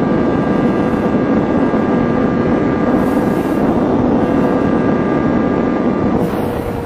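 Kawasaki ZXR250's 250cc inline-four engine running at high revs on the move, a steady high-pitched whine over a rush of wind and road noise, fading out near the end.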